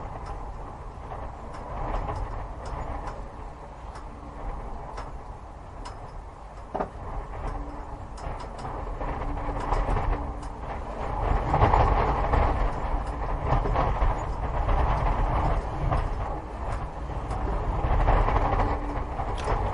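Low rumbling with scattered clicks and clatters, growing louder about halfway through.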